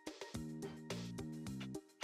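Background music with a steady beat and low sustained chords.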